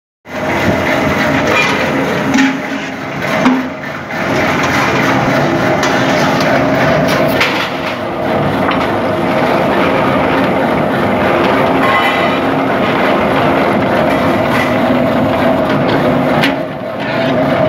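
A bucket seaming machine running steadily as it spins a metal bucket and rolls the base onto its wall. There are a few sharp metal knocks a few seconds in.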